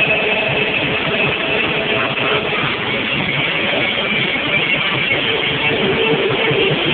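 Live rock band playing with electric guitar and drums.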